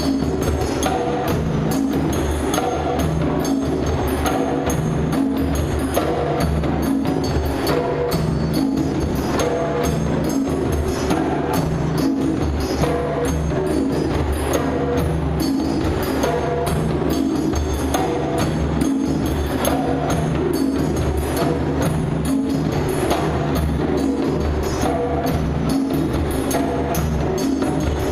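Music with a steady percussive beat over a low bass line.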